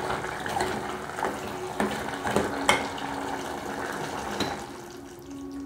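A ladle stirring a thick stew in a metal pot: liquid sloshing, with several light knocks of the ladle against the pot.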